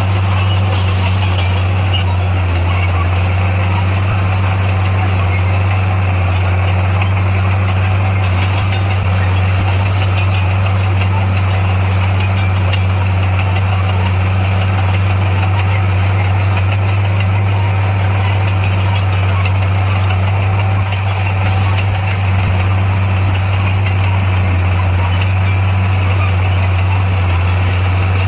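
Bulldozer's diesel engine running steadily, a deep, even drone that barely changes, dipping briefly a little after twenty seconds.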